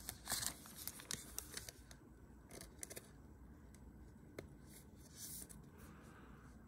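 Faint handling of a trading card being slid into a clear plastic sleeve: a few light ticks, then a soft plastic swish about five seconds in.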